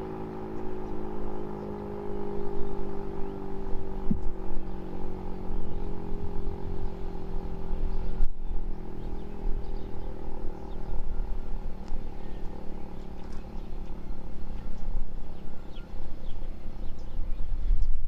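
Federal Signal Model 7 electromechanical outdoor warning siren sounding its steady alert tone, which slowly sinks in pitch and fades about halfway through as the siren winds down. Low wind rumble on the microphone runs underneath.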